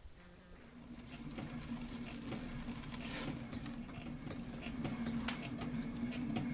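Potter's wheel humming steadily as it spins, starting about a second in, while a trimming tool scrapes a leather-hard clay bowl. The scraping comes with irregular clicks and crackle as shavings break off.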